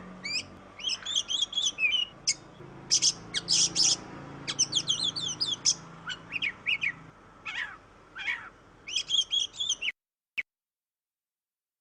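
Oriental magpie-robin (kacer) singing a fast, varied run of whistles, trills and chirps. It cuts off suddenly about ten seconds in, followed by one short click.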